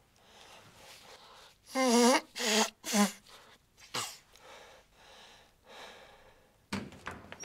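A man building up to a sneeze: three loud, strained, pitched 'ah' sounds in quick succession, then one short sharp sneeze about four seconds in, with soft breathing before and after. A few short clicks follow near the end.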